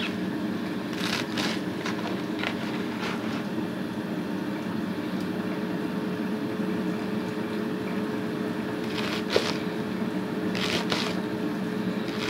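Sharp kitchen knife slicing through rolled collard green leaves: short crisp cuts in irregular clusters, a few in the first seconds and again near the end, over a steady low hum.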